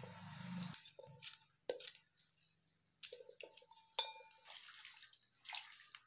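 Okra pods being cut by hand with a small knife over a metal wok: a string of sharp clicks and snaps, several with a short metallic ring as the knife or falling pieces strike the pan.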